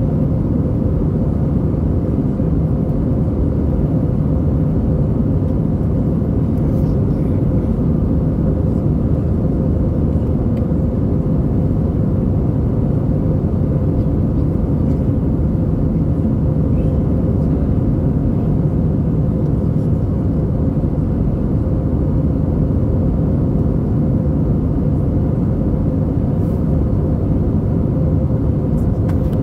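Steady engine and airflow noise inside the cabin of an Airbus A320 in flight: an even, low roar with a faint steady hum running through it.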